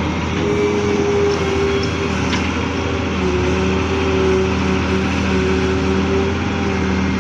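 Diesel engines of a Daewoo wheeled excavator and a tractor running steadily as the excavator works, a constant low drone with a held tone above it that drops slightly in pitch about three seconds in.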